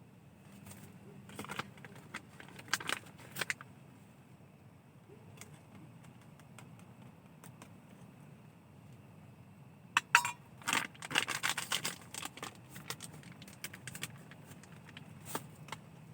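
Two bursts of clinking and rattling, as of small hard objects being handled, the second one louder.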